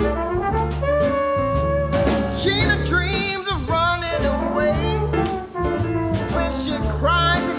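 Background music: a song with a singing voice over instruments and a steady beat.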